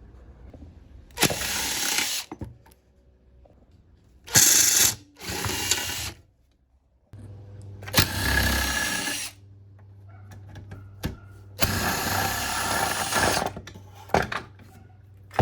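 Power drill running in five short bursts of about one to two seconds each, with pauses between them.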